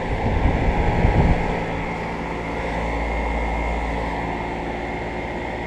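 2008 Comfortmaker central air conditioner condensing unit running: a steady hum of the condenser fan and Copeland scroll compressor, just after it has switched on. Louder low rumbling comes through in the first second and a half, then the hum settles.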